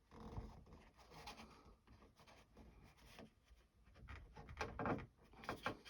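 Faint handling noises: light clicks and scrapes as a sleeve is worked onto a model ship's propeller shaft, busier near the end.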